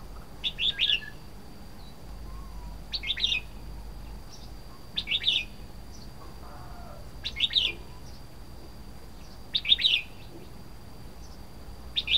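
Red-whiskered bulbul calling: a short phrase of a few quick, bright notes, repeated about every two seconds, six times.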